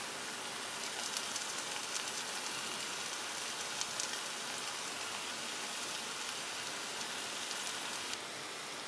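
Onion-tomato masala frying in a pan: a steady soft sizzle with scattered small crackles.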